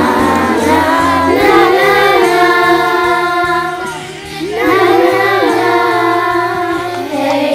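A children's choir singing a song together over a musical accompaniment, the voices recorded separately at home and mixed into one virtual choir. The singing dips briefly about four seconds in, then comes back in full.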